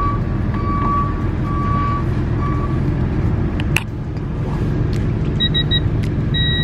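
Digital torque adapter on a half-inch wrench beeping as a hub bolt is tightened toward 110 Nm. First comes a string of short beeps at one pitch; near the end the beeps turn higher, the last one held longer, as the target torque is reached. A steady low hum runs underneath, with a single click about four seconds in.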